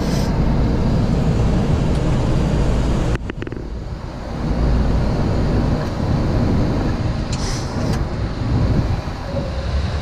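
Steady flight-deck noise of a Boeing 737-800 climbing after takeoff: a loud, even rush of airflow and engine noise. About three seconds in, the noise drops abruptly and changes character.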